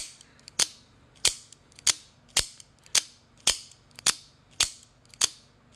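AKC F-16 out-the-front automatic knife snapping its blade out and back in, over and over: about ten sharp clicks, nearly two a second, in a steady rhythm.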